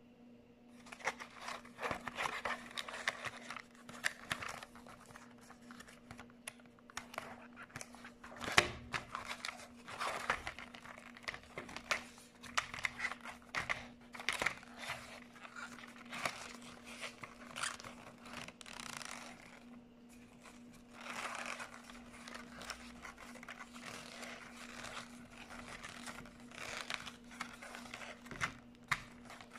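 Clear plastic packaging and a paper instruction leaflet being handled and unfolded: irregular crinkling and rustling, with one sharp snap about eight and a half seconds in. A faint steady hum runs underneath.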